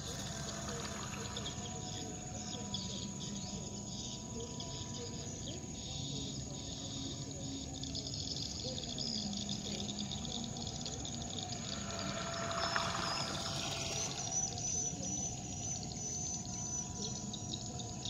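Radio-controlled jet boat's brushless electric motor and turbo jet unit running on a pond, heard as a high whine over chirring insects. It swells louder about two-thirds of the way through as the boat comes nearer.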